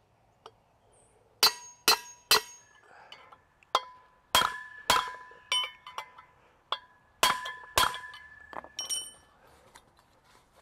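Hammer blows on a steel punch driving wheel studs into a brake rotor hub: about a dozen sharp, irregular metal strikes, each leaving a brief ringing tone.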